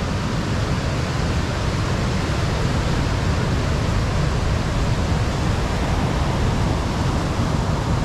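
Heavy ocean surf breaking on a sandy beach: a continuous, even rush of water with a strong low rumble underneath.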